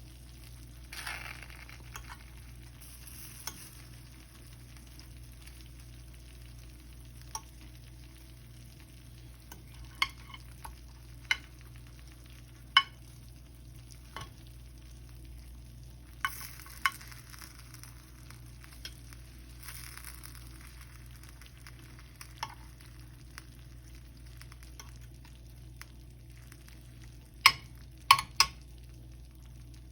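Cooking sounds: scattered sharp clicks and knocks of utensils on dishes, with short patches of soft brushing noise, over a steady low hum. A few louder knocks come close together near the end.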